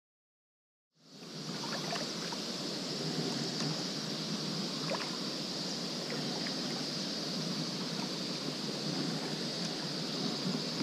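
Silence for about a second, then the steady wash of water from kayak paddling, with faint drips and light ticks from the paddle.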